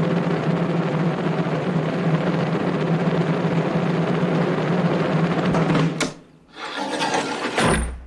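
Military snare drums rolling steadily, cut off by a sharp crack about six seconds in. A short rushing slide follows, then a heavy thud near the end: the guillotine blade dropping and striking.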